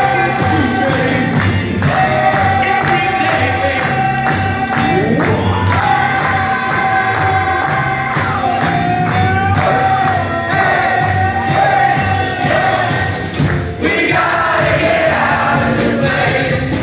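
Loud dance music with a steady beat and held sung notes, played by a DJ over a sound system.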